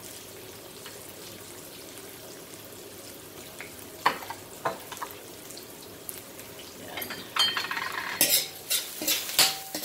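Garlic and onions sizzling steadily in a frying pan. There are two sharp clicks a little after four seconds in, then from about seven seconds a quick run of knocks and scrapes as a utensil stirs the pan.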